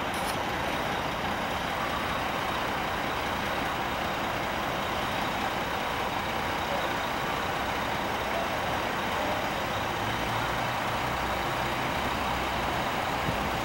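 Mack RD690S tank truck's E7 diesel engine idling steadily.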